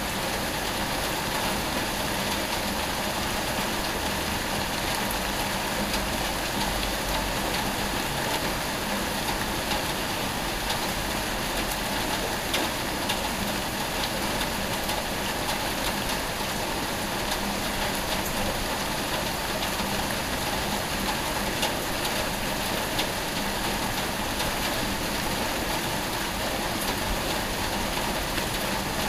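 Steady rain falling on a street, with the fine ticks of individual drops close by.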